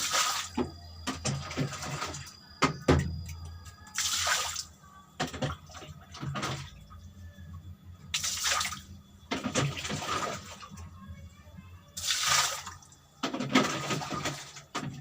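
Water splashing in short, irregular hissing bursts, about six of them.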